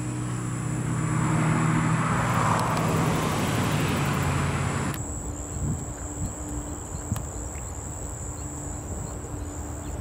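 A motor vehicle passes by: a steady engine hum under tyre and road noise that swells and fades over the first five seconds. Then the sound cuts to quieter outdoor ambience with a steady high whine and a few faint clicks.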